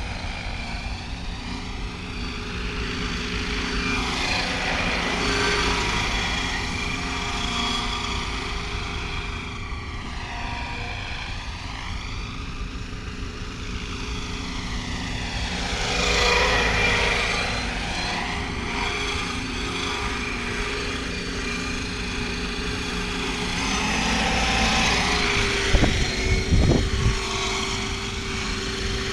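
Radio-controlled scale MD 520 helicopter in flight: rotor-blade whoosh with a steady turbine-style whine from its onboard Aerosound sound module, the sound sweeping up and down as it flies past. Near the end it comes in low and a few gusty low thumps of rotor wash hit the microphone.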